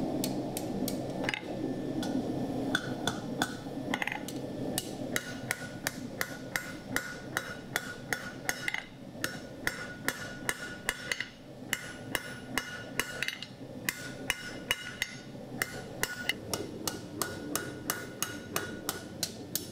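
Hand hammer striking a red-hot steel bar on an anvil in quick runs of blows with short pauses between them. The anvil rings with a clear tone after each strike.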